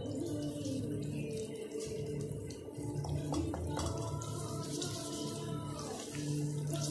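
Eggs sizzling in hot oil in a non-stick frying pan while a spatula stirs and scrapes them, over soft background music with held notes.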